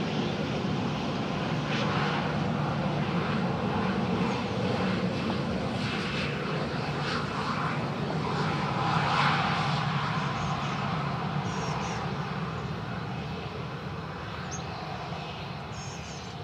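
Boeing 737-800's CFM56-7B turbofan engines running as the airliner slows on the runway after landing. A steady jet roar and rumble swells around nine seconds in, then slowly fades.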